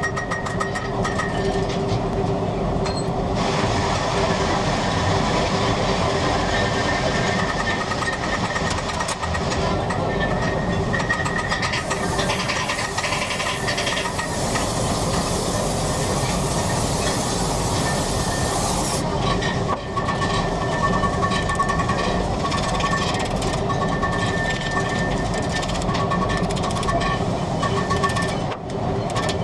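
A train running with a steady rumble of rail noise. A higher hiss joins for several seconds in the middle.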